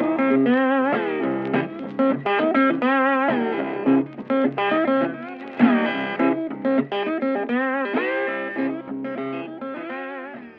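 Electric guitar music, a melody of plucked notes with some bent and wavering notes, fading away and stopping near the end.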